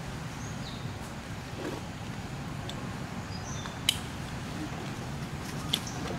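Steady low outdoor background rumble with a few faint, short high chirps and two sharp clicks.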